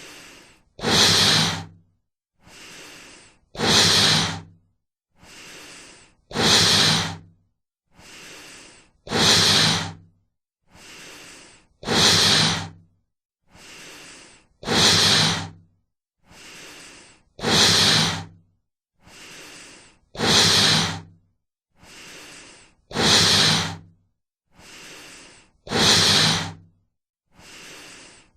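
Slow, heavy human breathing sound effect: a soft breath followed by a much louder, throaty one, in an even cycle repeating roughly every two and three-quarter seconds.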